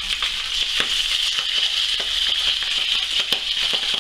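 Herring fillets frying skin-side down in oil in a very hot pan: a steady sizzle with frequent small crackles and spits.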